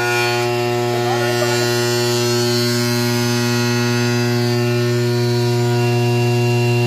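Steady electric motor hum at one constant pitch, from the pump flushing water through a bus's air-compressor delivery pipe.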